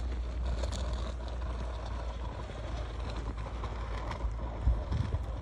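Footsteps crunching through fresh snow while walking, over a steady low rumble.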